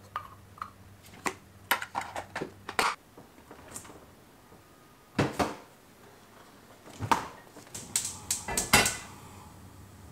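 Kitchen handling sounds: light clinks and knocks of a wooden spoon against a small stainless steel cup and of food containers being picked up and set down. They come in irregular bursts, busiest in the first three seconds and again near the end.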